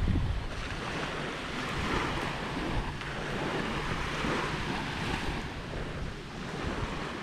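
Waves washing onto a beach, the surf swelling and easing, with wind rumbling on the microphone.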